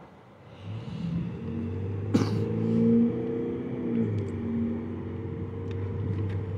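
A motor vehicle's engine running: a low, steady hum with several tones in it that grows louder around two to three seconds in and then eases off. A single sharp click sounds about two seconds in.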